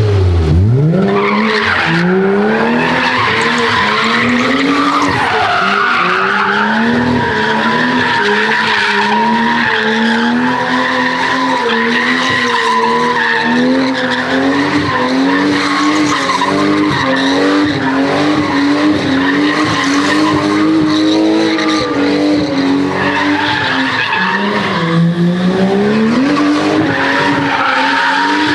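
Drift car's engine held high in the revs, its pitch wavering up and down with the throttle, over a steady tyre squeal as the car slides. The revs drop sharply and climb again at the start, and dip briefly and climb again near the end.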